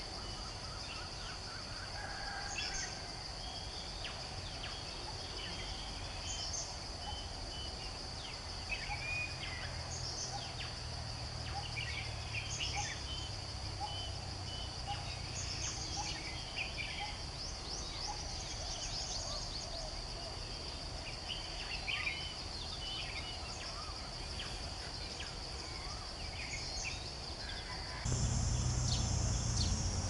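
Outdoor birdsong from several birds: many short chirps and whistles, with a steady high-pitched drone underneath. A louder low rumble starts near the end.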